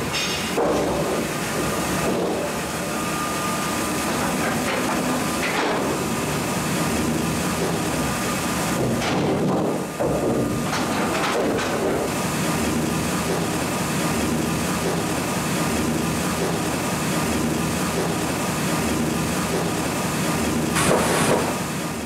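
Horizontal band sawmill line running, a MEBOR HTZ 1200 Plus with its log deck and conveyors: a steady mechanical noise with a faint whine and occasional knocks and clanks of timber and steel. It fades out at the end.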